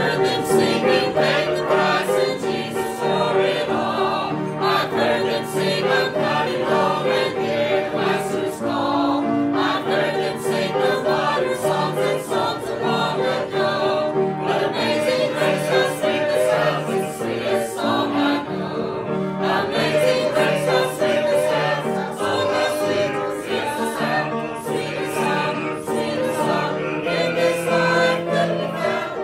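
A choir singing a hymn with music behind it.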